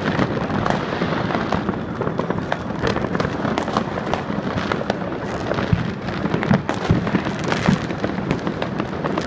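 New Year's Eve fireworks and firecrackers going off all around: a constant crackling and popping, with a few sharper, louder bangs in the second half.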